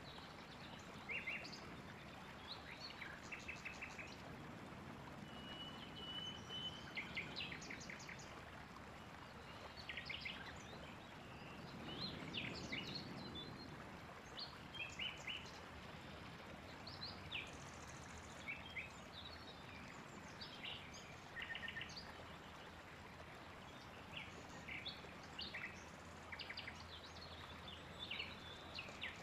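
Small birds chirping and singing in short trills, scattered all through, over a faint steady hiss. A low rumble swells for a couple of seconds about twelve seconds in.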